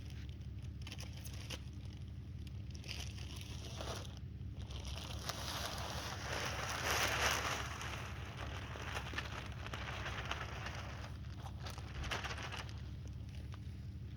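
Plastic bags of topsoil rustling and crinkling as they are handled and emptied into a raised garden bed, with a louder hiss of rustling about halfway through.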